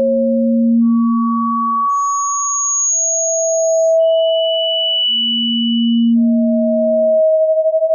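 Pure electronic sine tones of sound-therapy audio for tinnitus, each held steady for about two seconds and overlapping in pairs, stepping between low, middle and very high pitches. Near the end, two close tones beat against each other in a fast wavering.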